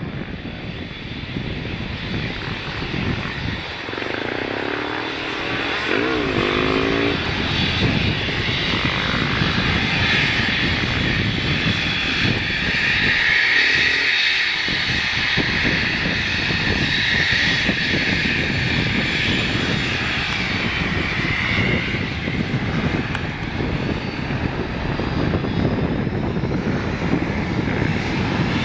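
The four turbofan engines of a BAe Avro RJ85 running at low taxi power: a steady high whine over a low rumble. It grows a little louder during the first several seconds as the jet turns and lines up on the runway.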